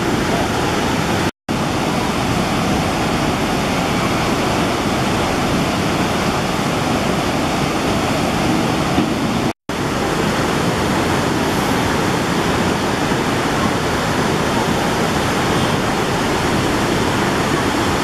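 The Myagdi river in flood, its muddy, turbulent high water rushing past in a loud, steady noise after heavy rain upstream. The sound cuts out for an instant twice.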